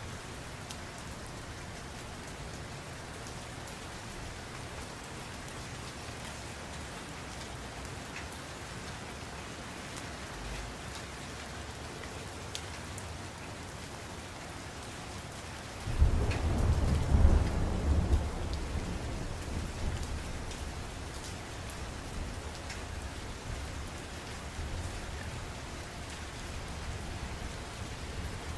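Steady rain hissing and pattering. About two-thirds of the way through, a sudden low rumble of thunder swells and fades away over several seconds.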